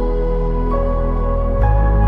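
Calm ambient background music of sustained, held notes that shift chord once about two thirds of a second in; near the end a deep bass note enters and the music swells slightly.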